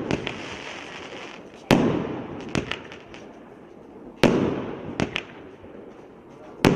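Fireworks cake firing colored comets one shot at a time, three shots about two and a half seconds apart. Each shot is a sharp bang followed by a fading hiss as the comet burns, with one or two smaller pops after it.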